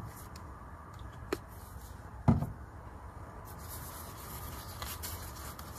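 A plastic squeeze bottle knocks once as it is set down on a wooden shelf about two seconds in, then soft rustling and rubbing as a flour tortilla is folded around the burrito filling, over a steady low background hum.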